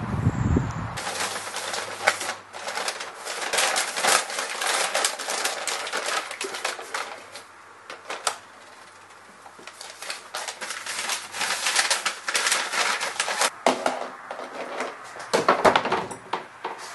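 Small kraft paper bags crinkling and rustling as their tops are folded down, with irregular crackles and clicks. Near the end, plastic tubs knock and clatter as they are handled.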